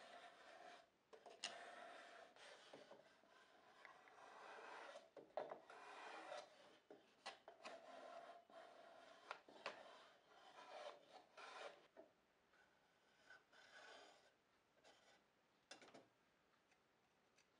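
Faint repeated rubbing strokes of a hand plane working across the edges of a small wooden box, each stroke a second or two long. Near the end there are a few light wooden clicks as the box is slid in and fitted.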